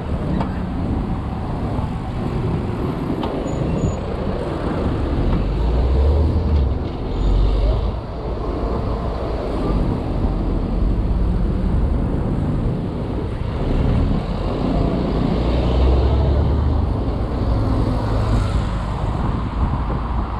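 Street traffic heard from a moving bicycle: a steady low rumble of car engines and road noise that swells twice, about six and sixteen seconds in.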